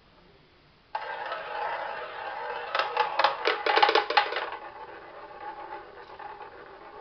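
Tabletop roulette wheel spinning: about a second in the ball is sent round the rim with a steady rolling whir, then it clatters over the pocket dividers in a quick run of clicks and drops into a pocket as the wheel turns on.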